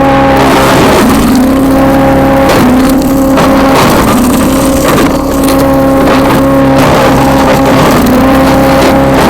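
Wood chipper/shredder's 212 cc single-cylinder gas engine running loud and steady while branches are fed through and shredded; its pitch sags briefly several times as the engine takes the load and then recovers.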